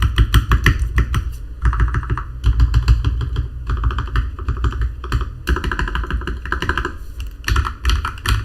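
Custom GK61 mechanical keyboard being typed on quickly, keystrokes clattering in bursts with brief pauses between them.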